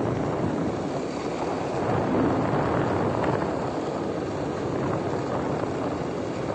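Motorbike riding along, its engine running under the steady rush of wind over the microphone.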